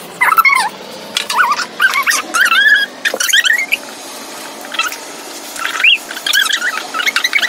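Felt-tip markers squeaking as they are dragged across a blue latex glove, in clusters of short squeaks that waver up and down in pitch.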